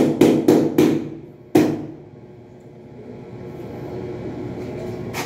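Large wall tile being slapped by hand to bed it into its adhesive: about four quick, loud knocks in the first second and one more about a second and a half in, then a steady low background.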